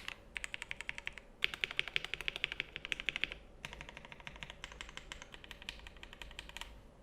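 Typing on a KBD67 Lite mechanical keyboard with lubed Gateron Ink Black linear switches, a polycarbonate plate, foam and GMK keycaps. It goes in fast runs of keystrokes with two brief pauses, typing more softly in the second half and stopping shortly before the end.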